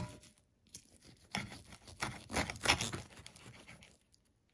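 Knife and fork cutting through a baked ciabatta-loaf pizza on a plate: the toasted bread crust crackling and tearing, with cutlery scraping, in a few irregular bursts.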